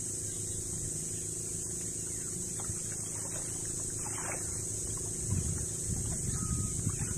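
Small outrigger boat's motor running steadily, with a few soft knocks and splashes in the second half.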